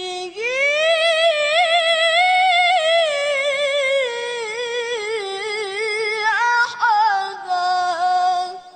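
A boy reciting the Quran in the melodic, ornamented tilawah style, amplified through a microphone. One long held phrase climbs at the start, winds lower through quavering turns, then leaps back up and holds a steadier high note before stopping at the very end.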